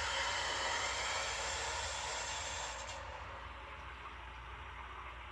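Water rushing in through the supply line to fill a hot water tank: a steady hiss that turns quieter and duller about three seconds in.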